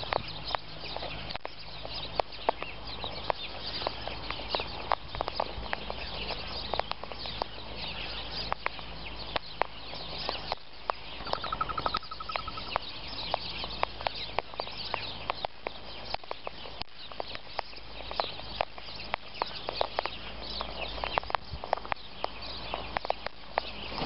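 Sulphur-crested cockatoos feeding on scattered birdseed close by, making an irregular stream of sharp clicks and crunches as they peck and crack the seed. A busy high chatter runs underneath, and a brief rapid trill comes near the middle.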